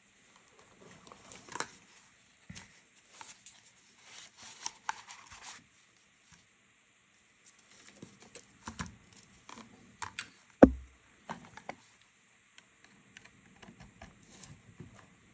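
Scattered small clicks, taps and rustles of hands handling small parts, with one sharper knock about ten and a half seconds in.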